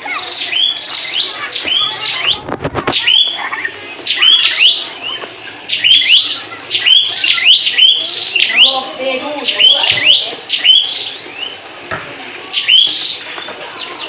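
Prinia (prenjak) singing persistently: a rapid run of sharp, repeated chirps with short pauses, with a brief rustle about two seconds in.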